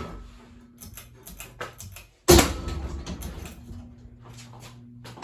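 Blows against a ceiling fan: scattered knocks and rattles, with one loud bang about two seconds in and another at the very end. A faint steady low hum runs under them.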